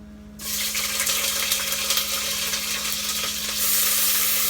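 Food going into hot oil in a cooking pot, sizzling loudly. It starts suddenly about half a second in and gets louder near the end.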